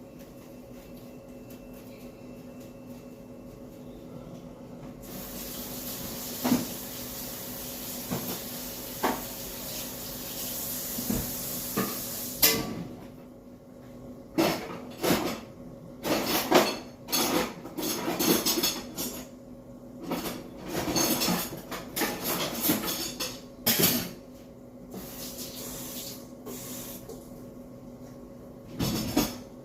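Kitchen tap running for about seven seconds, then a run of clattering of dishes and metal cutlery, with a last clink near the end.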